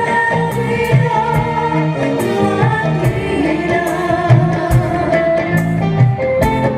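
Dangdut band playing live: a melodic lead line over a steady, repeating pattern of low hand-drum strokes.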